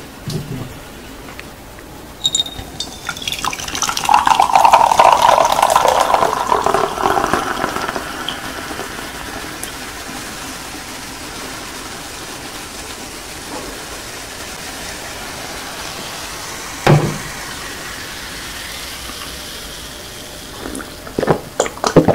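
Coca-Cola poured from a can into a glass mug. The pour is loud at first and settles into a long hiss of fizzing foam. There is one knock near the three-quarter mark, and short sharp sounds at the very end as he begins to drink.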